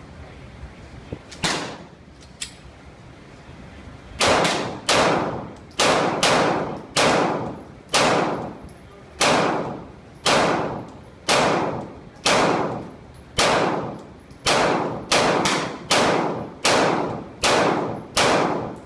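Pistol shots from a Glock: a single shot about a second and a half in, then from about four seconds in a steady string of rapid fire at about two shots a second, each shot trailing off before the next.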